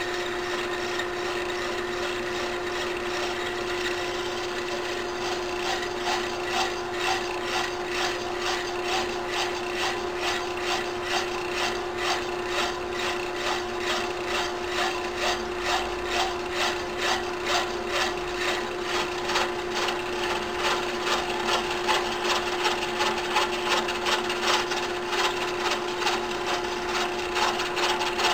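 Small metal lathe running with a steady hum while a hand-held saw blade is worked back and forth against the spinning workpiece, parting off a ring for a pen center band. The rasping strokes come about twice a second and grow louder a few seconds in.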